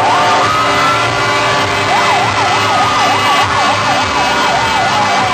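Vehicle siren: a slow rising wail that breaks off early on, then from about two seconds in a fast yelp, its pitch swinging up and down about four times a second, over a steady low rumble.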